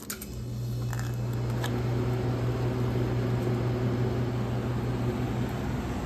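Refrigeration condensing unit of a single glass door Beverage-Air refrigerator running: compressor and condenser fan giving a steady hum that swells up within the first second. The technician suspects the system is low on refrigerant charge.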